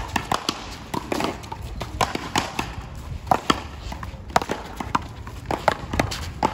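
Rubber paddleball rally: sharp smacks of the ball off paddles, the concrete wall and the court at an irregular pace of a few hits a second.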